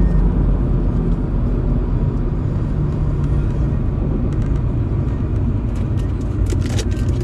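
Steady low rumble of a running car heard from inside the cabin, with a few light clicks near the end.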